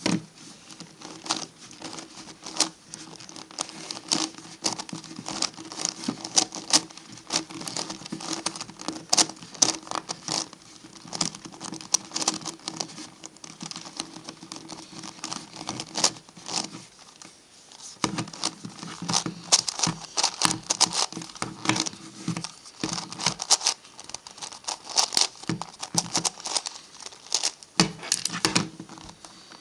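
Plastic pieces of an MF8 Gigaminx puzzle clicking and clattering as its faces are turned quickly by hand, a dense, uneven run of clicks with brief pauses.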